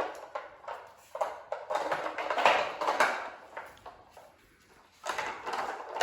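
Dogs working at a treat-hiding puzzle toy, its hard pieces clattering and knocking in irregular bursts, with a lull about four seconds in and more clatter near the end.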